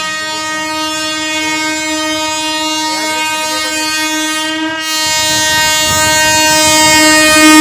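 Air horn of an approaching Indian Railways electric locomotive, sounded as one long continuous blast with a rich stack of harmonics, with a slight break about five seconds in. It grows louder toward the end as the train nears. It is the warning blast for the level crossing.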